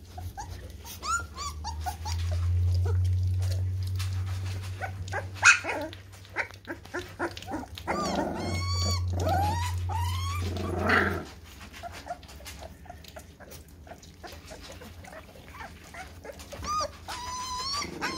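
Puppies almost three weeks old whining and squeaking in many short, high cries that rise and fall, among small wet clicks and smacks as they lap at mush in a metal pan. A low steady hum comes in twice, for a few seconds each time.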